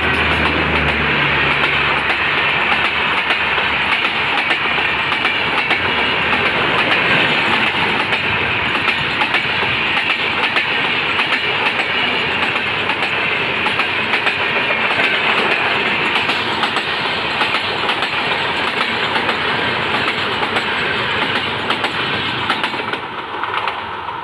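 Express passenger train passing at speed behind a WAP-5 electric locomotive. The locomotive's low hum is heard in the first second or so, then a long steady rush of steel wheels on rail with repeated clicking as the coaches go by, dying away near the end as the last coach draws off.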